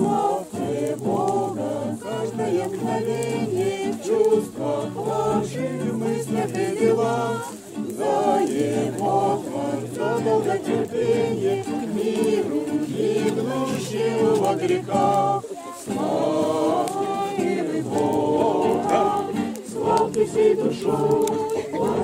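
A mixed group of men's and women's voices singing a song together, accompanied by a strummed acoustic guitar, with a brief pause about two-thirds of the way through.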